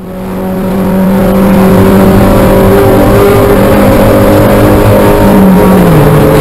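Spec Miata's four-cylinder engine heard from inside the cockpit under hard acceleration, fading in over the first second and then holding a steady high pitch near 6,000 rpm in second gear. Near the end the pitch drops as the driver shifts up to third, settling near 4,800 rpm.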